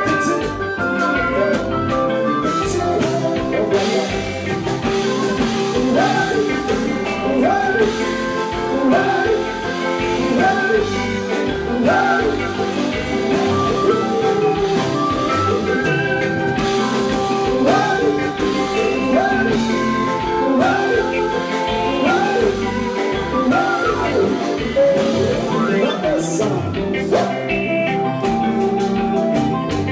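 Live kompa band playing at full volume with a steady beat: electric guitar and keyboards, with a male lead singer at the microphone.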